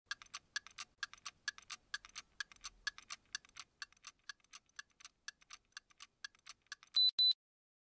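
Watch ticking, about four ticks a second, alternating strong and weak, then two quick high beeps like a digital watch alarm near the end.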